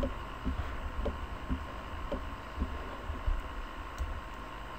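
A computer mouse being clicked and moved on a desk: irregular soft low thumps and faint clicks, about two a second, over a steady faint hum.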